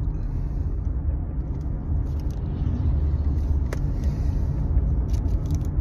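Steady low rumble of a car heard from inside the cabin, with a single sharp click about three and a half seconds in.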